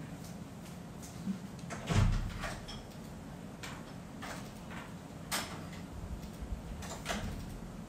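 A few soft knocks and clicks, with a louder low thump about two seconds in.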